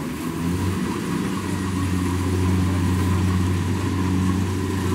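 Kubota rice combine harvester's diesel engine running steadily under load while it cuts rice, rising slightly in pitch and loudness about half a second in and then holding.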